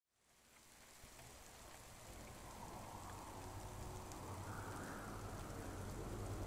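Steady rain, fading in from silence and slowly growing louder, over a low hum.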